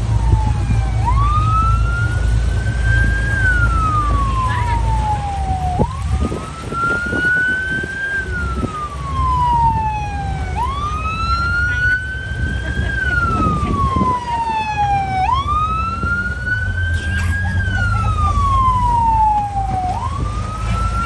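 Police boat's siren wailing in repeated cycles, each a quick rise followed by a slower fall, about every five seconds, over a steady low rumble.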